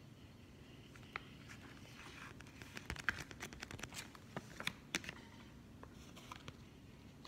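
Folded paper leaflet rustling and crinkling as it is unfolded and handled, with a run of sharp crackles in the middle, over a faint steady low hum.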